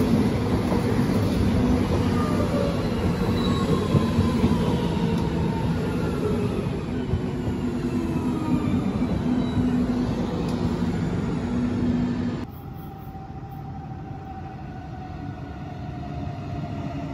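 A red Deutsche Bahn regional train rolls past close by, with loud wheel-on-rail rolling noise and a drive whine falling in pitch. About twelve seconds in, the sound cuts to a quieter, growing rumble of an Arriva Stadler FLIRT electric multiple unit approaching the platform.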